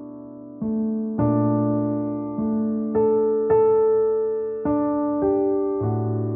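Slow, gentle piano music: single notes and chords struck about once every half second to a second over low bass notes, each ringing and fading.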